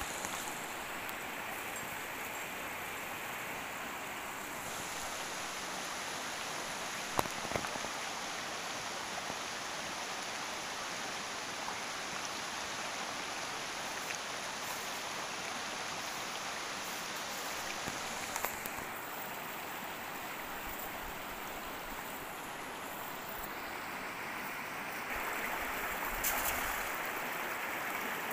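Steady rushing of water, with one sharp knock about seven seconds in, growing a little louder near the end.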